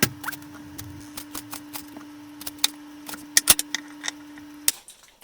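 A kitchen knife slicing a jalapeño pepper into thin strips, the blade tapping on a cutting board in a run of irregular sharp clicks. A faint steady hum sits underneath and stops shortly before the end.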